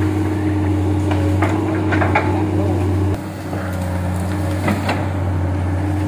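Hydraulic excavator's diesel engine running steadily, its note dropping a little about halfway through, with scattered knocks and cracks of brush and branches breaking as the bucket works through the scrub.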